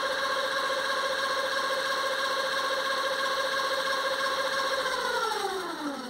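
Bafang G06 750 W electric geared hub motor spinning freely on the bench with a steady whine, then slowing down near the end, its pitch falling as it winds down. It still carries an annoying noise, which the owner puts down to a bent main spindle.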